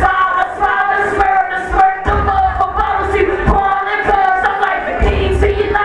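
Live hip-hop performance in a large hall: a vocal over a beat with bass hits and crisp percussion, with some crowd noise.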